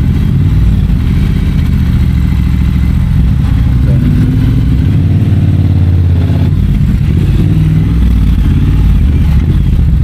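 Triumph Bonneville Bobber's 1200 cc parallel-twin engine running under way. Its note rises as the bike accelerates, from about three seconds in until past the middle.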